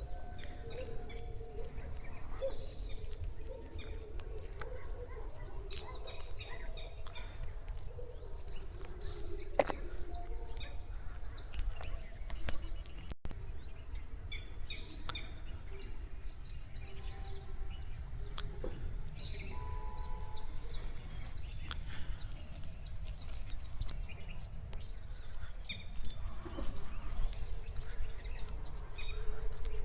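Many small birds chirping and twittering throughout, over a steady low rumble of wind.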